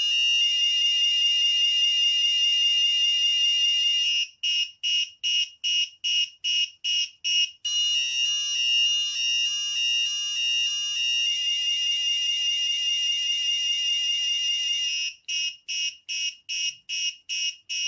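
Electronic alarm buzzer of an Arduino ultrasonic motion alarm, sounding a shrill high tone. It holds steady for a few seconds, then breaks into fast beeps about three a second, holds steady again, and beeps again near the end. The alarm has been tripped by movement in front of its ultrasonic sensor.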